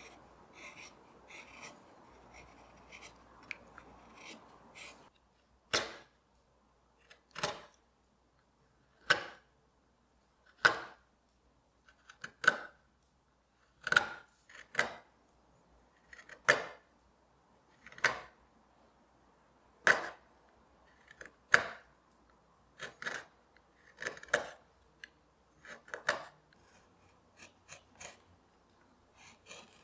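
Hand chisel paring walnut: a soft steady scraping for the first few seconds, then a series of crisp single cutting strokes, one every second and a half or so.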